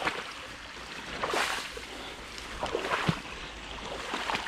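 Legs wading through creek water: three sloshing splashes, each step about a second and a half apart, over the steady rush of the flowing stream.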